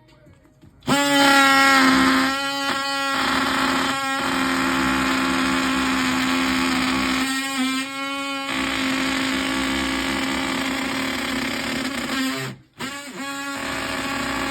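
DeWalt oscillating multi-tool running with a steady high buzz. It stops briefly near the end and starts up again.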